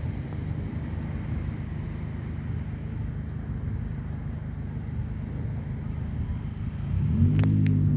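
Steady low rumble of a motor vehicle, with a car engine coming in louder about seven seconds in and starting to climb in pitch as it accelerates.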